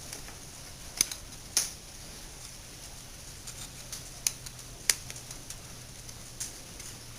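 Sharp metal clicks and taps of a small electric starter's housing parts being handled and fitted together during reassembly, a handful of separate clicks over a low steady hum.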